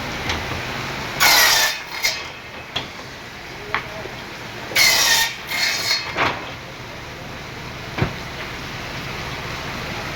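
Wood being worked by hand: two loud rasping strokes a few seconds apart, and several short sharp knocks between them.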